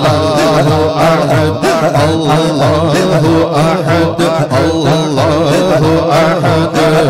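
A man singing a hamd, an Urdu devotional hymn in praise of God, into a microphone, with a wavering, ornamented melody. Underneath runs a low, even pattern that repeats about twice a second.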